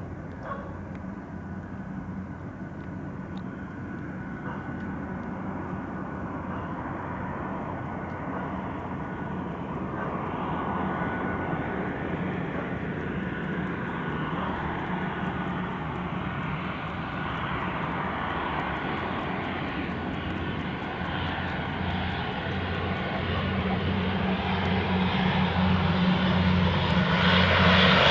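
ATR 42-300 twin turboprop on approach, its Pratt & Whitney Canada PW120 engines and propellers giving a steady low drone that grows steadily louder as the aircraft comes nearer.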